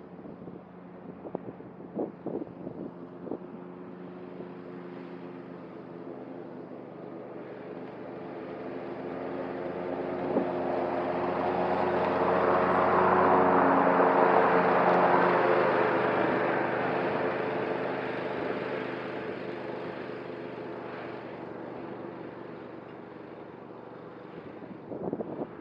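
Cub Cadet ZTS1 zero-turn riding mower running steadily. It grows louder as it comes near, is loudest about halfway through, and fades as it drives away.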